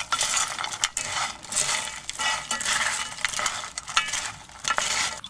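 Wooden and plastic spatulas scraping and tossing crisp fried bread cubes with tomato and feta in a black pan. The scraping and rustling strokes come about two or three a second, with small clicks of the spatulas against the pan.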